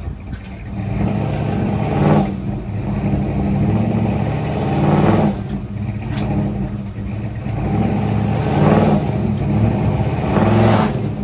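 Car engine running at a low, steady note, revving up briefly about four times.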